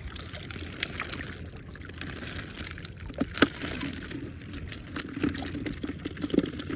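Water sloshing with scattered small splashes as sea catfish are cornered and handled in the catch of a fish corral.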